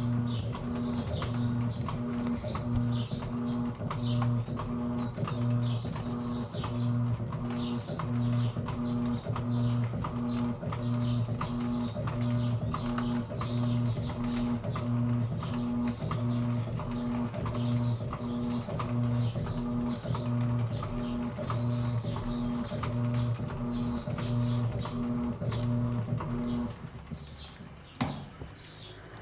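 Electrolux Essential Care 11 kg top-loading washing machine agitating: the motor hums in steady, rapid pulses as the agitator swings back and forth. The hum stops near the end, followed by a single sharp click.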